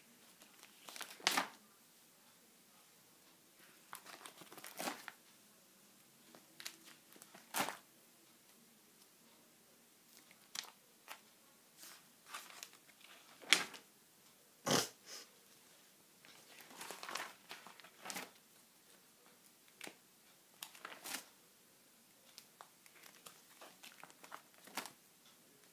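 Clear plastic sheet-protector pages in a ring binder crinkling as they are turned one after another, with irregular sharp crackles.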